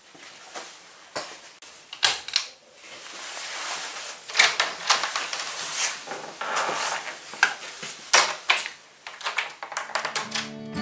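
Scattered knocks, clicks and shuffling of a person moving about a small room, including the click of a wall light switch being flipped.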